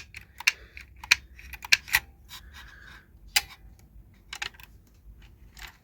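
Irregular clicks and light rattles from an old cuckoo clock's works and chains being handled, close together at first and sparser after about two seconds.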